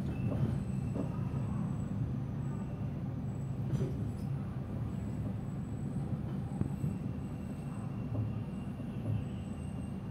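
Passenger train coach rolling slowly out of the station, heard from inside the coach: a steady low rumble with a few light knocks.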